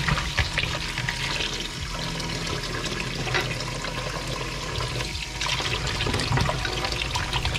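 Kitchen tap running into a plastic bowl of cut potatoes while hands swish them around, water splashing and sloshing as the starch is rinsed off.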